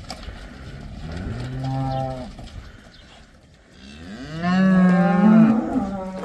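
Beef cattle mooing twice: a shorter low moo, then about four seconds in a longer, louder moo that bends up and down in pitch.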